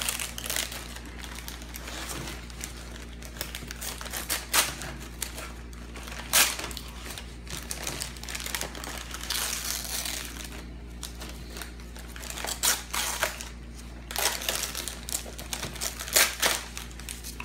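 Wrapping paper being torn and crinkled as a gift is unwrapped: repeated short rips and rustles, with a longer stretch of crinkling about halfway through.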